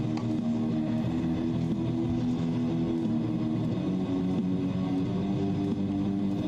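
Background music led by guitar, with held notes that change every second or so.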